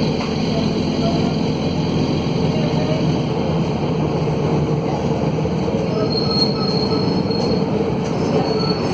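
Mercedes-Benz OM904LA four-cylinder turbo-diesel of a midibus running under way, a loud steady drone made harsh by a broken exhaust, heard from inside the bus. A thin high squeal comes in about six seconds in and again briefly near the end.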